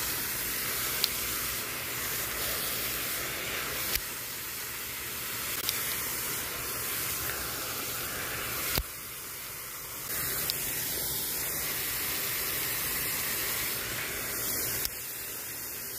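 Lake fountain's water jet spraying and splashing back onto the water, a steady rushing hiss. A few sharp clicks cut through it, the loudest about a second in.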